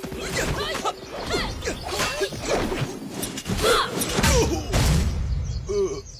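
Dense animated-film sound effects: many quick squeaky chirps sliding up and down in pitch, cut through with whooshes and sharp hits.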